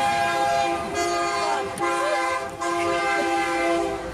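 Freight locomotive horn sounding at a grade crossing: a steady multi-note chord blown as several blasts with short breaks between them.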